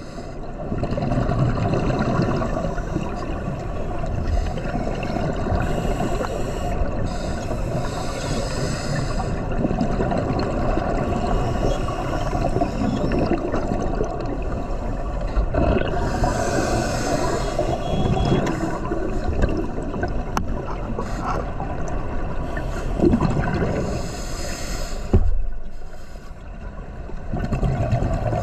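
Scuba diver breathing underwater through a regulator: a steady, low gurgling rumble of exhaled bubbles. Every several seconds there is a brighter hiss.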